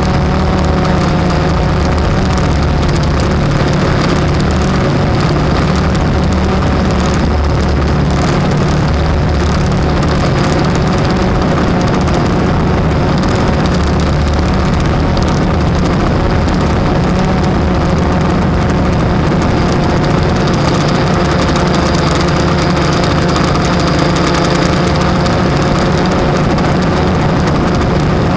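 Blade 350 quadcopter's electric motors and propellers running steadily in flight: a loud, even drone with several whining tones that waver slightly in pitch over a low hum.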